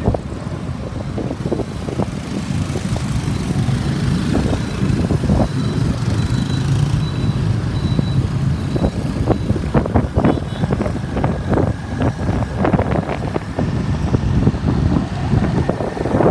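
Motorbike riding through city traffic: a steady low rumble of engines and road noise, broken by many short crackles of wind buffeting the microphone.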